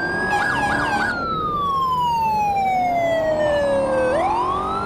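Police siren wailing: the pitch holds high, slides slowly down for about three seconds, then sweeps quickly back up about four seconds in. A brief hiss sounds in the first second.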